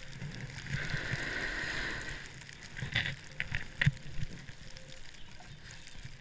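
Snowboard riding over snow: a scraping hiss from the board carving for a second or so, then a few sharp knocks about three to four seconds in, over a low rumble of motion.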